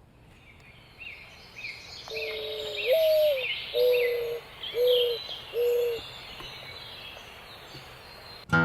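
A dove cooing a phrase of five low notes, the second sliding up and back down, while a songbird chirps a short repeated phrase above it.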